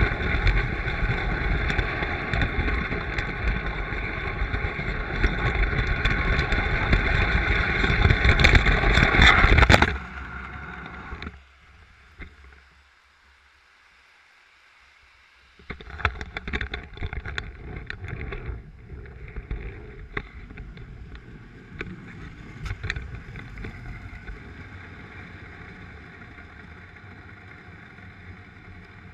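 Lionel toy train running on three-rail track, a loud steady rumble with a whine, heard close up at track level; it cuts off abruptly about ten seconds in. After a short near-silent gap come scattered clicks and knocks of the camera being handled and set down beside the track, over a fainter steady running noise.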